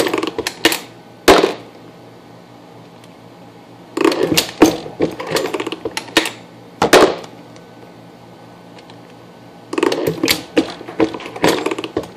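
Star Universal progressive reloading press being worked by hand: three bouts of rapid metal clicks and clacks a few seconds apart as the shell plate is turned and the cases move between stations.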